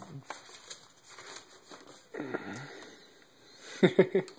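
Large paper plan sheets being turned and handled, with a man's wordless voice sounds: a short falling hum about two seconds in, and three short, louder vocal pulses near the end.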